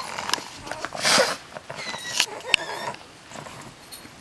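Small dogs close by: a short breathy burst about a second in, a faint high-pitched squeak around two seconds in, and a sharp click soon after.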